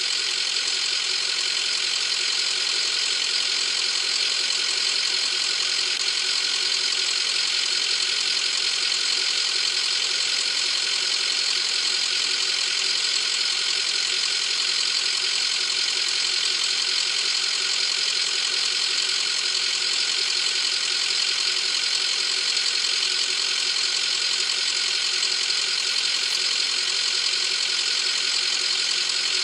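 Ambulance engine idling steadily, with no change in speed.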